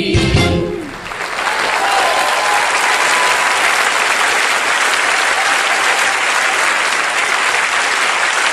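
The song's last notes end within the first second, then a studio audience applauds steadily.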